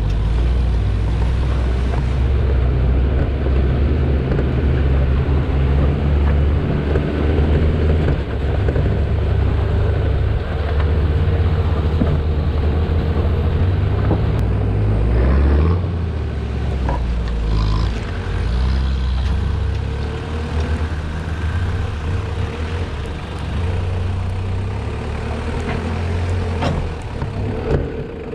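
Toyota Hilux Surf's engine running at low revs as the 4x4 crawls over a rocky track, with scattered knocks and clicks from stones under the tyres.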